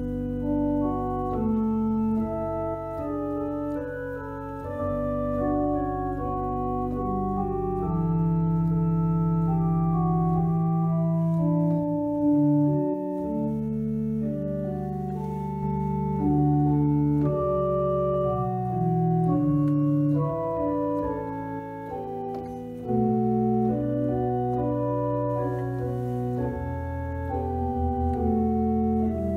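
Rodgers Classic digital church organ playing a hymn arrangement: sustained chords moving above long-held bass notes.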